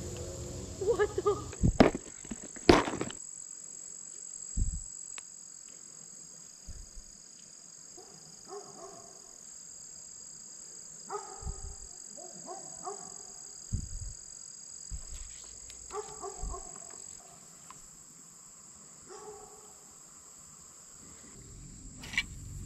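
Summer insects droning steadily at a high pitch, with short pitched calls every few seconds and a few sharp knocks about two and three seconds in.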